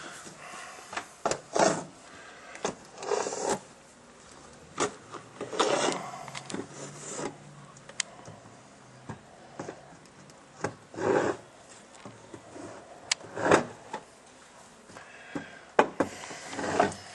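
Irregular crunching and scraping in snow: short uneven bursts a second or two apart, with a few sharp clicks.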